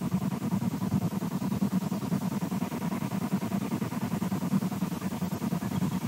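Low, wavering 'waffling' hum on the nest camera's audio, with a faint steady higher tone above it.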